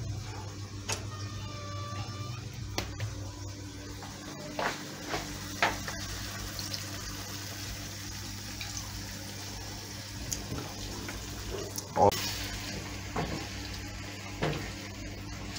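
Kitchen utensil knocks against a cooking pan, a few scattered sharp taps with the loudest about twelve seconds in, over a steady low hum and faint hiss.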